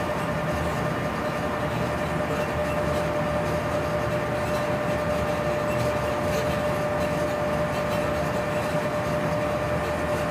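DB class 139 electric locomotive running steadily, heard inside the cab: even rolling and running noise under a steady whine, with a few faint clicks.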